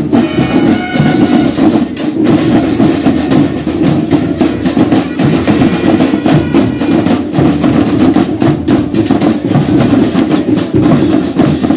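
Marching band drum corps playing a steady, rapid cadence on snare drums and bass drums. A few metallic bell-lyre notes ring out near the start.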